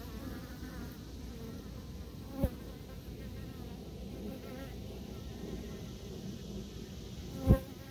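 Honey bees buzzing steadily on a brood frame lifted from an open hive, a dense wavering hum of many bees. A brief knock about two and a half seconds in and a louder one near the end.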